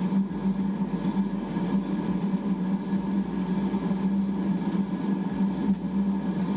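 Gas-fired ribbon burner forge running with its air pump, burning steadily: a constant rumbling burn with a strong low hum that holds level.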